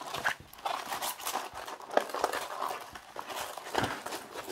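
Diamond painting canvas being handled and rolled backwards to flatten it: irregular rustling and crinkling, with a couple of sharper taps about two seconds in and near the end.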